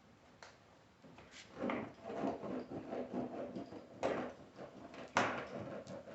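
Plastic fender clips being pushed into place by hand: several sharp snaps and clicks, with plastic scraping and rustling in between.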